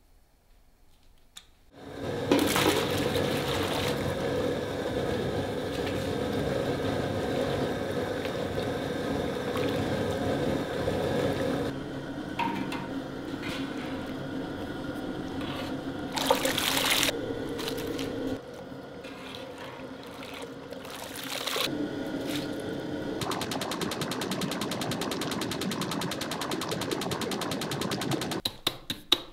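Potato slices deep-frying in a large pot of hot oil, a dense sizzling and bubbling that starts suddenly about two seconds in and eases off about halfway through. Near the end come sharp metallic clinks of the wire frying basket against the pot.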